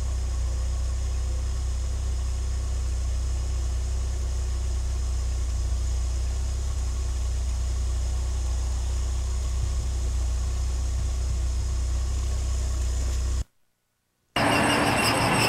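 A steady low mechanical hum that cuts off abruptly near the end, leaving a moment of silence.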